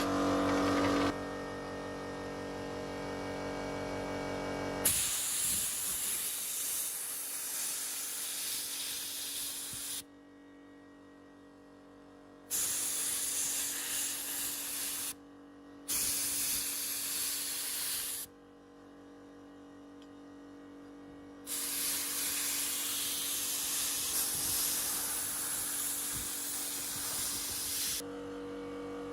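A steady humming drone with several tones, then four bursts of spraying hiss lasting a few seconds each, starting and stopping abruptly.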